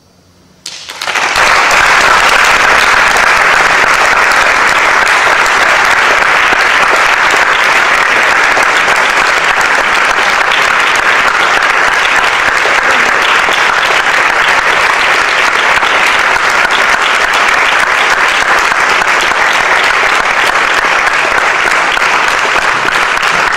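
Audience applauding at the end of a performance. The applause breaks out suddenly about a second in, after a hush, then keeps up steadily.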